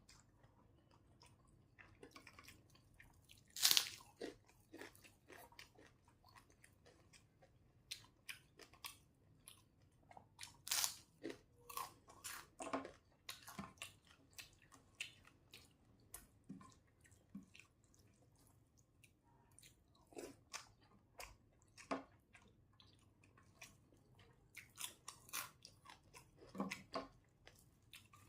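A person chewing and biting crunchy food close to the microphone, with irregular crisp crunches, the loudest about four seconds in.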